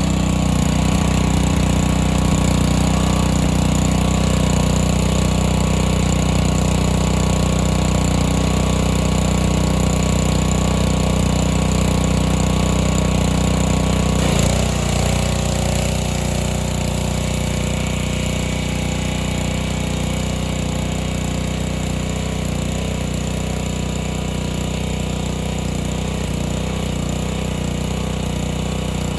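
Small gasoline engine of a pressure washer running steadily at full speed. Its note shifts slightly about halfway through.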